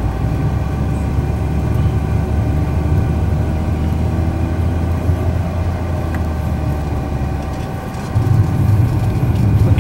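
Car cabin noise while driving on the open road: a steady low rumble of engine and tyres with a faint constant whine, the rumble growing louder about eight seconds in.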